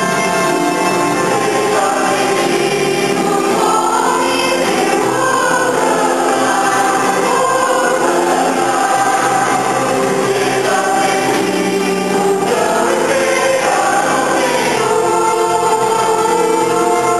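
Mixed choir of men and women singing a Christmas cantata, voices in held, sustained chords without a break.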